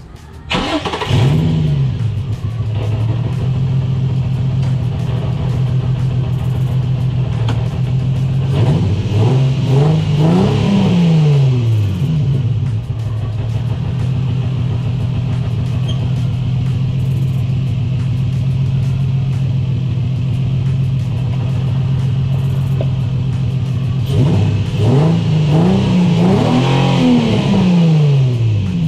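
Infiniti G35's 3.5-litre VQ35DE V6 starting about half a second in, flaring briefly and settling to a steady idle on freshly fitted spark plugs. It is revved in two short blips around the middle and several more near the end, each rising and falling back to idle.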